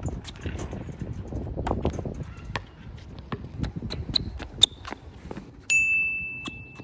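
Footsteps and scuffs of Jordan Zoom Separate basketball shoes on an outdoor hard court, with a basketball being handled and bounced: a run of short knocks and thuds. Near the end a high, steady squeal starts suddenly and holds for about a second.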